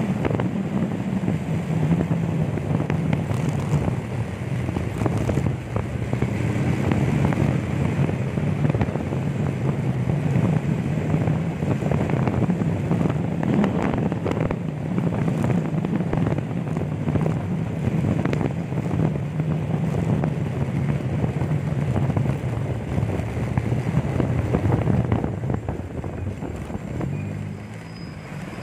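Small motorcycle engine running at a steady cruising pace, with wind rushing on the microphone; near the end the engine eases off and the sound drops as the bike slows.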